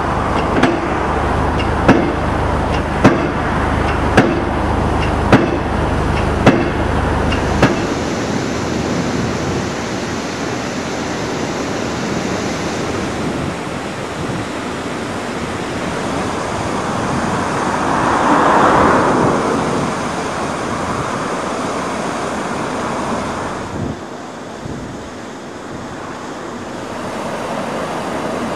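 A hydraulic piling hammer driving steel sheet piles, striking about once a second, over a low engine rumble. After about eight seconds this gives way to the steady rush of water pouring over a weir, which swells briefly around the middle.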